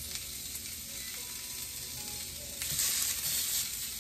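Seasoned lamb chops sizzling in a hot ridged grill pan. A little under three seconds in, a second chop is laid down and the sizzle gets suddenly louder and brighter.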